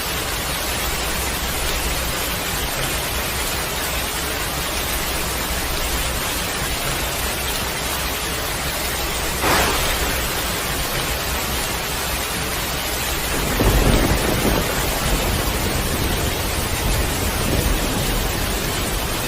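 Heavy rain falling steadily, a dense hiss. About nine seconds in there is a sharp crack, and from about thirteen seconds thunder rumbles low for a second or two, with fainter rumbles after it.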